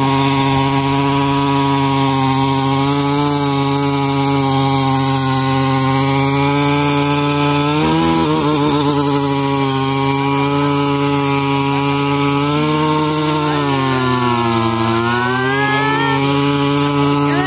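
Small gasoline engine of a kids' mini ATV running at steady high revs while its wheels spin in mud. Its pitch sags about 13 seconds in, bottoms out around 15 seconds, then climbs back up.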